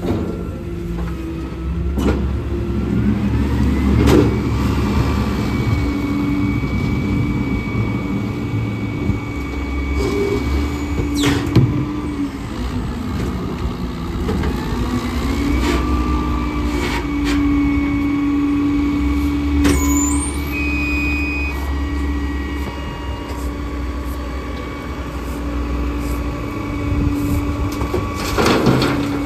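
Diesel engines of a wheel loader and a rear-loader garbage truck running steadily, with hydraulic whines that rise in pitch as the loader's bucket is lifted and tipped over the truck's hopper. Sharp clanks and thuds of metal and dumped debris come a handful of times, the loudest near the end.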